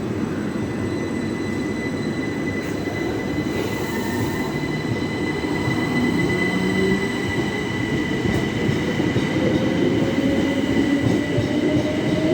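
Southeastern Class 375 Electrostar electric multiple unit pulling through the platform, its running rumble carrying a steady high whine, and from about halfway in a traction-motor whine that rises steadily in pitch as the train gathers speed.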